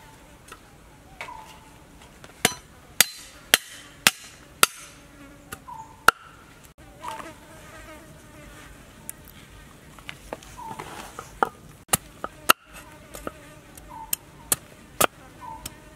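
Cleaver blade knocking against a wooden cutting board in irregular single strikes, about a dozen, as ginger is sliced, with insects buzzing.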